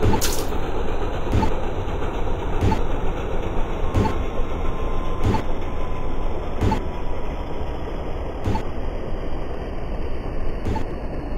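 Steady low rumble with a sharp click or knock about every second and a half, the knocks spacing out near the end. A brief hiss comes just after the start.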